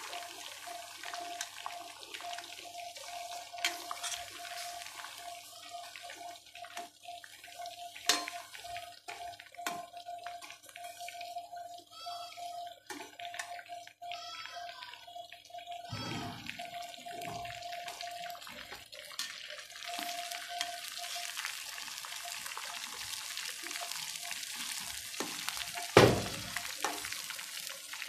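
Chicken kabab pieces deep-frying in hot oil in a steel kadai, a steady sizzling hiss, with a slotted steel spoon scraping and clinking against the pan now and then; one loud clink near the end.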